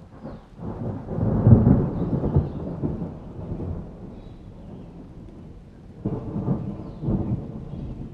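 Thunder rumbling in a rainstorm: a long peal that builds, is loudest about a second and a half in, and fades away, then two shorter rolls about six and seven seconds in.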